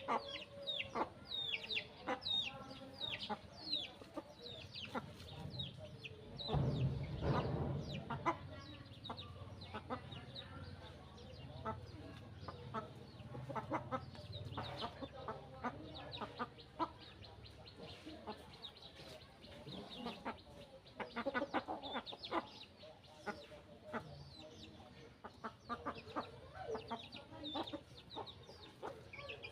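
Chickens clucking and calling, with many short, high-pitched calls throughout, thickest in the first few seconds. A brief louder low noise comes about seven seconds in.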